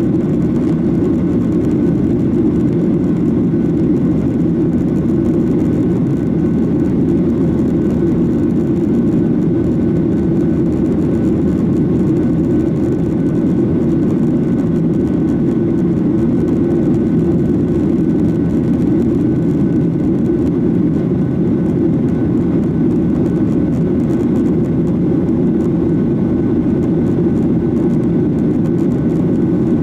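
Cabin noise of a Boeing 737-800 airliner: its CFM56-7B jet engines and the rush of air heard from inside, a loud, steady low drone with a faint whine above it.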